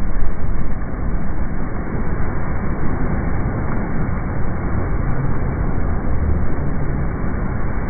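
Handheld flamethrower firing a continuous jet of burning fuel: a sudden loud rush of flame at the start, loudest in the first second, then a steady rushing noise.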